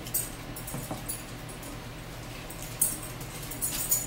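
Close-up eating mouth sounds: scattered soft, high-pitched wet clicks and smacks, a few louder ones near the end, over a faint steady hum.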